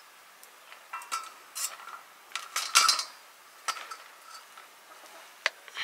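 Metal serving spoon scraping and knocking against the inside of an aluminium pressure cooker while scooping out cooked rice: a run of short scrapes and clinks, the loudest about three seconds in.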